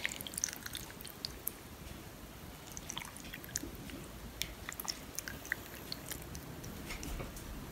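Sauce poured from a glass bowl over sliced pork tongue on a plate: faint, scattered small ticks.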